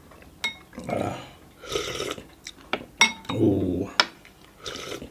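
A metal spoon clinks twice against a glass bowl of bone broth, with slurping sips of the broth from the spoon and a short low grunt from the eater between them.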